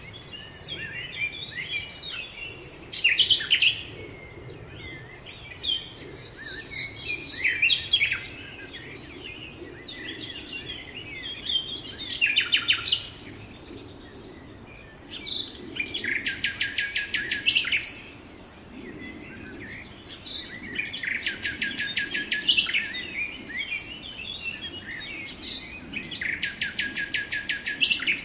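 Several songbirds chirping and singing together, with one bird's loud, rapid trill coming back three times, about five seconds apart, in the second half.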